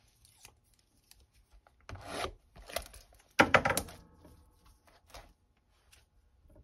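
A cardboard trading-card hobby box handled by hand, making a few short rubbing and scraping noises; the loudest comes about three and a half seconds in.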